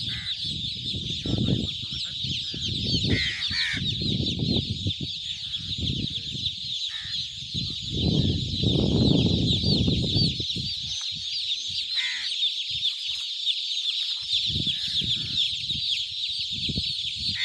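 A dense, continuous chorus of high-pitched peeping from hundreds of newly hatched chicks, with irregular low rumbling noise underneath and a few separate louder calls.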